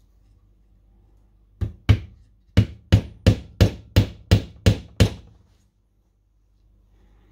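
Claw hammer knocking on the corner of a wooden beehive super frame held in a wiring jig: about ten sharp strikes, two close together and then a steady run of eight at roughly three a second.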